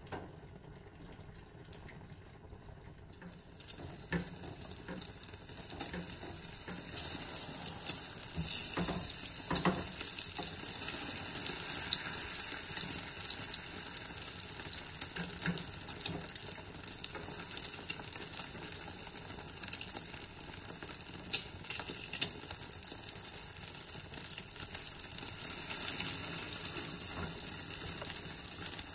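Beaten eggs frying in olive oil in a non-stick pan: faint at first, as the pan was not yet hot, then a steady high sizzle from about four seconds in. Occasional light scrapes and taps of a silicone spatula folding the omelette.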